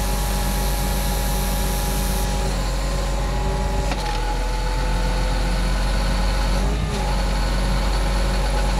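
Diesel engine of a 2007 Case IH Magnum 305 tractor running steadily with a low rumble.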